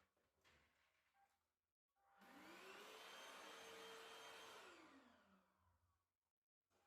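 Cordless vacuum cleaner switched on about two seconds in: its motor whines up to speed, runs steadily for a couple of seconds, then winds down and stops.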